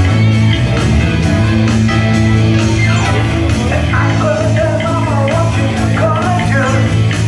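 Live band music from a bass guitar and keyboard duo playing a Schlager song, with a steady bass line under a wavering melody that comes in about halfway through.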